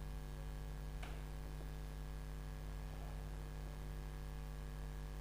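Steady electrical mains hum with a faint tick about a second in.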